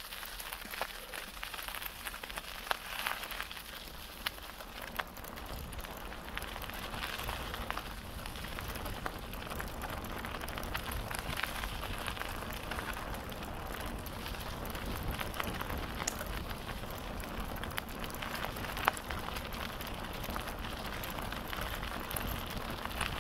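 Bicycle tyres rolling over a gravel and leaf-strewn woodland path: a steady crackling hiss with scattered sharp clicks, over a low rumble that swells after a few seconds.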